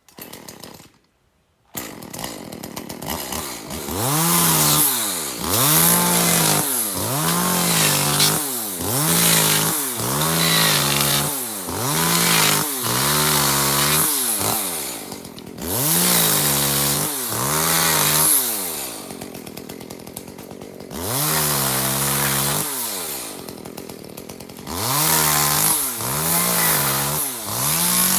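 Chainsaw cutting bamboo, starting about two seconds in: the engine revs up and falls back about once a second, with a few brief dips to lower revs between cuts.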